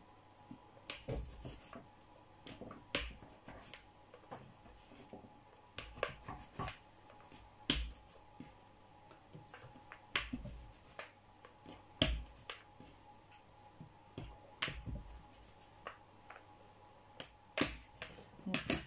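A rolling pin clacks and knocks against a plastic board as small rounds of dumpling dough are rolled out, giving irregular sharp clicks every second or so.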